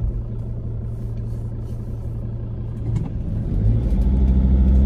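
Car engine and road noise heard from inside the cabin: a steady low drone that rises in pitch and gets louder about three and a half seconds in as the car speeds up.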